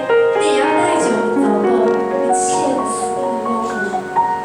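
Piano music: held chords and notes moving from one to the next at a steady pace.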